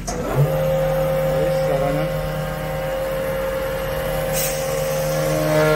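Overhead router's electric spindle motor switched on about half a second in, then running steadily with a hum and a higher whine. A brief hiss comes about four seconds in.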